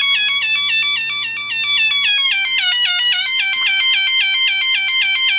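Electronic alarm tone from an SP-1A through-hole solder-practice kit board played through its small loose loudspeaker: a rapid repeating falling chirp, about five a second, whose pitch sags for a moment about halfway through.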